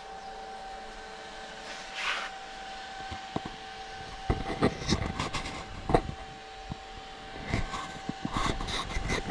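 Irregular knocks and clunks of handling as the camera is moved around a bare steel-tube buggy chassis, with a brief hiss about two seconds in and a steady hum underneath.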